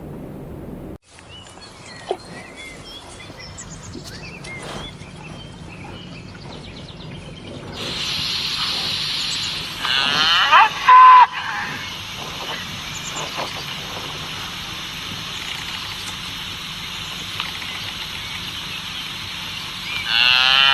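Animal calls over steady outdoor background noise, with one loud call about ten seconds in: a run of quick falling sweeps that ends in a short held note.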